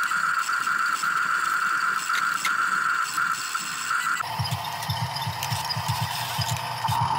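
Radio-controlled toy excavator's small electric motors and plastic gearbox whining steadily as the arm and bucket move. About four seconds in, the whine drops lower and a fast low rattle of the gears comes in under it.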